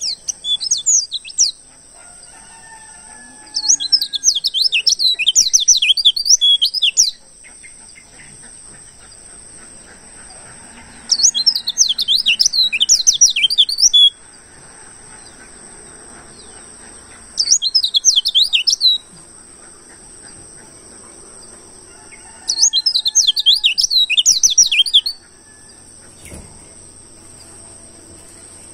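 White-eye (pleci) singing in five bouts of rapid, high, twittering warble, each one to three and a half seconds long with pauses of a few seconds between them, over a steady high-pitched insect-like drone.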